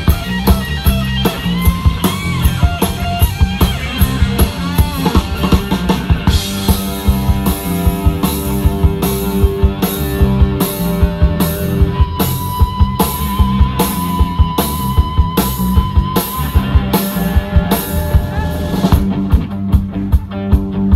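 Live rock band playing an instrumental passage: electric guitar, bass guitar and a drum kit. Early on, the guitar bends notes. From about six seconds in, the drummer hits the cymbals on a steady beat, and about halfway through a held, wavering guitar note rings for a few seconds.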